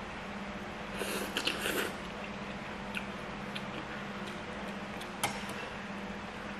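Instant noodles (Indomie) slurped off chopsticks about a second in, then quiet chewing with a few small clicks and one sharp click about five seconds in. A low steady hum runs underneath.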